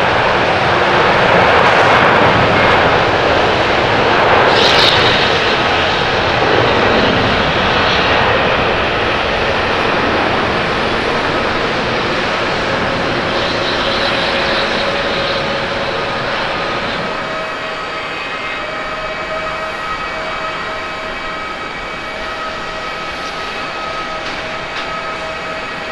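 Boeing 767-300(ER) jet engines at takeoff power, a loud roar during the takeoff and climb-out that slowly fades as the airliner climbs away. At about 17 s the roar gives way to the quieter, steadier sound of a Boeing 787-8 Dreamliner's jet engines on the runway, with several thin whining tones.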